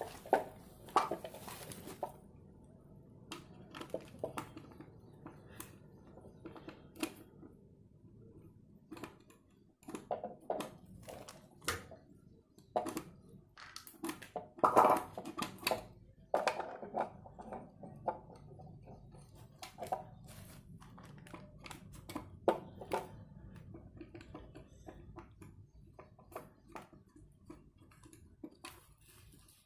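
Plastic speedometer case and its parts being handled and worked on by hand: irregular clicks, taps and light knocks, with a cluster of louder knocks about fifteen seconds in.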